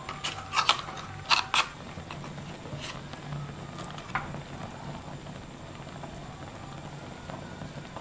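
Metal utensils clinking sharply against the shells and pot of a seafood hotpot: about five clinks in the first two seconds, then a few fainter clicks, over a low steady hum.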